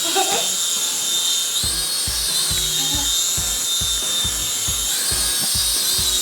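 Small propeller motors of a flying LED globe toy whining at a high pitch that rises and falls as it flies. From about a second and a half in there are low pulses, about three a second.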